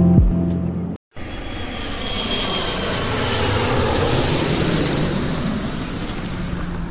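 Steady roar of jet engines and rushing air inside an airliner cabin in cruise flight, heard from a window seat over the wing. It swells gently and eases again near the end, after the last notes of a musical intro cut off about a second in.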